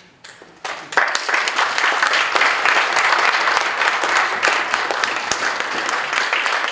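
Audience applauding: a few first claps, then full, dense applause from about a second in that holds steady.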